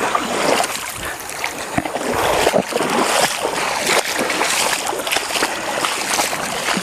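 Feet wading through a shallow stream: irregular splashes over the steady rush of flowing water.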